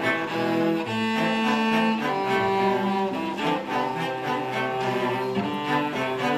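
A school orchestra playing, with the bowed strings and cellos to the fore in sustained notes that change about once a second.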